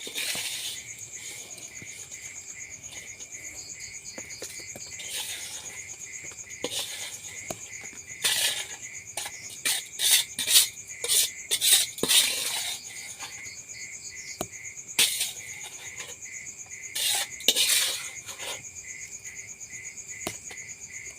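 Crickets chirring steadily in a fast pulse, with bursts of metal clinking and scraping from cutlery and cookware, clustered through the middle and again later.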